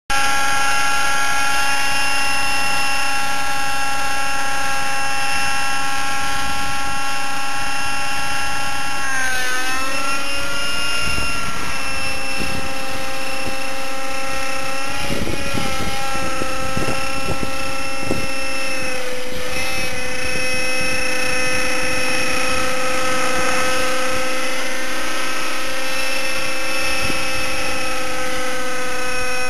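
T-Rex 600 Nitro Pro radio-controlled model helicopter in flight, its OS 50 Hyper two-stroke nitro engine with a Hatori performance muffler running steadily. Its pitch dips and recovers about nine to ten seconds in, and shifts again around fifteen and nineteen seconds in.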